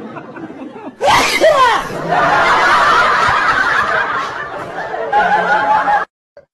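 Loud laughter and squealing voices, starting with a high falling squeal about a second in and cutting off suddenly near the end.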